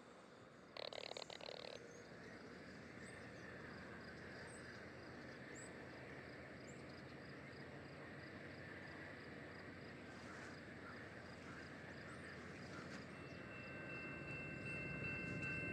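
Distant diesel freight locomotive rumbling faintly, growing louder near the end as it approaches, when its bell starts ringing steadily. A short rasping noise sounds about a second in, and faint bird chirps come and go.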